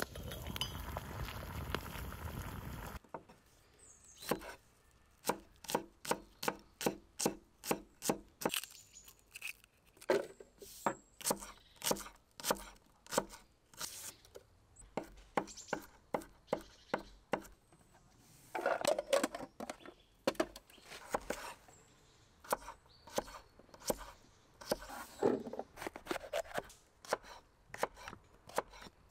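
Kitchen knife chopping vegetables on an end-grain wooden cutting board: sharp, even knocks of the blade on the board, about three a second at first, then in looser runs with a few rougher cutting sounds in between. For the first three seconds, the steady noise of a wood campfire.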